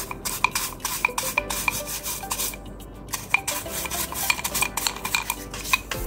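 Hands rubbing and scrubbing dust off the front casing of a Dell OptiPlex 3050 Micro PC: continuous scraping with many quick small clicks and taps of hard plastic.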